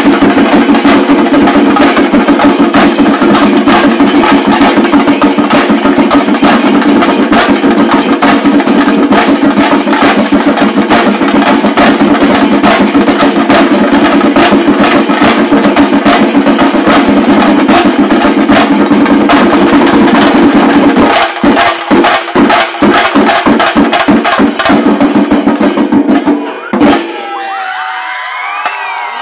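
Shinkari melam: a troupe of chenda drums beaten fast with sticks, together with ilathalam cymbals, in a loud, dense roll. About three-quarters of the way through the roll breaks into separate strokes, then stops on a final stroke near the end, leaving the crowd cheering and shouting.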